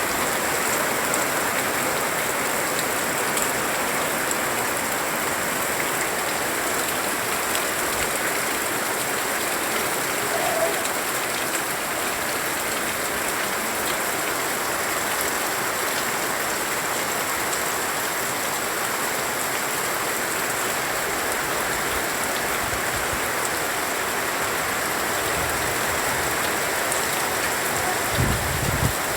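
Heavy rain pouring steadily, a dense even hiss of rain on surfaces, with a couple of low thumps near the end.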